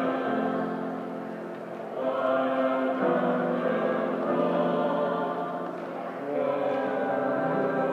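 A choir of several voices singing sustained chords in harmony, with new phrases beginning about two and six seconds in.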